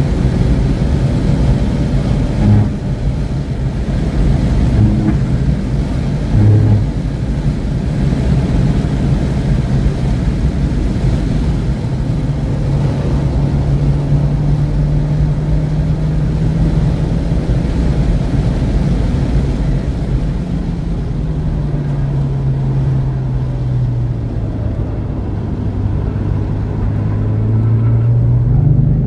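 2017 Alfa Romeo Giulia Ti Q4's turbocharged 2.0-litre four-cylinder, with an aftermarket street exhaust, driven hard: a few short blips in the first seven seconds, then the engine note climbs steadily, falls away, and climbs again near the end, over constant road and wind noise.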